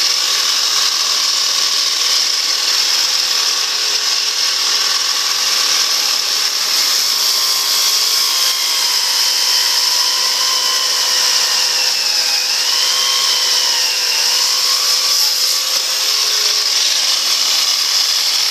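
Festool Kapex miter saw and Festool CT dust extractor running together while the saw cuts a thick maple block, a steady loud machine noise. A higher whine in it wavers and dips in pitch partway through as the cut loads the saw.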